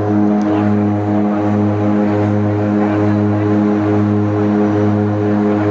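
Seaplane's propeller engines running at take-off power, heard from inside the passenger cabin: a loud, steady drone that swells and dips about once a second.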